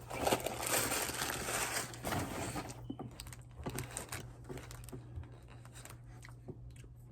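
Takeout food wrapper crinkling for about three seconds, then scattered light clicks and taps.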